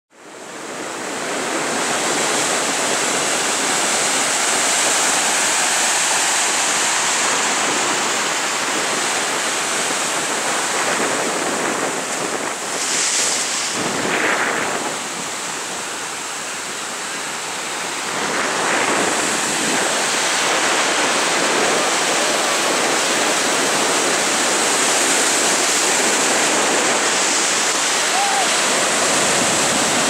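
Ocean surf: waves breaking and whitewater washing in as a steady rush. It fades in over the first second or so and eases off briefly around the middle.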